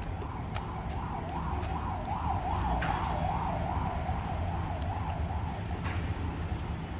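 An emergency-vehicle siren warbling quickly up and down, swelling and then fading away over about five seconds, over a steady low rumble. A few separate sharp clicks sound during it.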